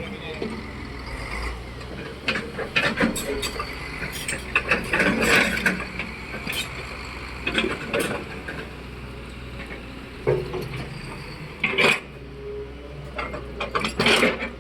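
Heavy earthmoving machinery at work: irregular clanks and rattles of rock and metal over a steady low engine hum, with a few louder knocks.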